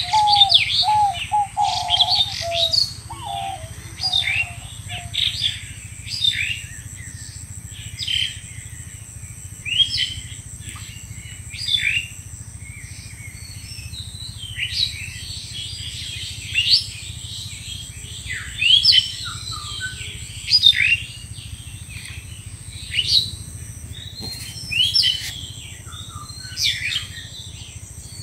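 Small birds chirping: short, sharp rising chirps repeated every second or two, with a lower run of call notes in the first few seconds.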